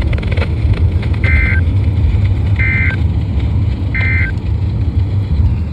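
NOAA Weather Radio's EAS/SAME end-of-message data: three short, identical bursts of buzzing, warbling digital tone about a second and a half apart, signalling that the warning broadcast is over. A steady low rumble runs underneath.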